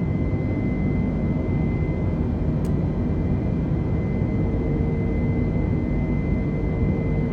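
Airbus A320 on approach, heard from on board: a steady rumble of airflow and engines with a faint, steady high whine running through it, and one faint click about two and a half seconds in.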